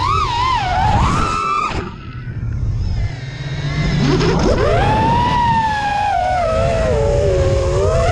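FPV racing quadcopter's brushless motors and propellers whining, the pitch swooping up and down with quick throttle changes, dropping away for about two seconds, then rising at about four seconds into a long high whine that slowly falls. Wind rushes steadily across the on-board camera's microphone underneath.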